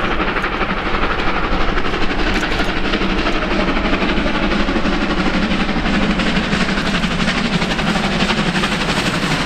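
Two R class steam locomotives double-heading a train at speed, their rapid exhaust beats running together into a steady chuffing as they approach.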